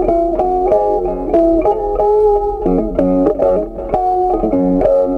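Background music: a plucked guitar tune of quick notes over lower bass notes.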